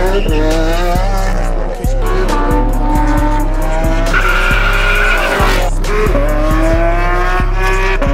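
Sports car engines revving hard as cars accelerate away, each rising in pitch and dropping back at gear changes, several times over. A hip-hop track's heavy bass beat runs underneath.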